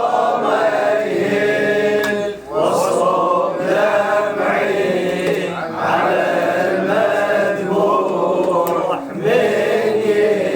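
Male voices chanting a Shia Muharram mourning lament (latmiya) in long, drawn-out melodic phrases, with short breaks for breath.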